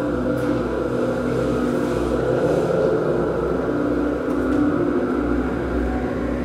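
Ambient drone music from analog synthesizers: several held tones layered over a deep bass rumble that swells and ebbs.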